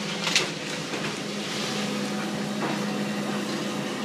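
Excavator engine running steadily at a low hum during house demolition, with a sharp knock shortly after the start and a soft rush of noise, like debris shifting, around the middle.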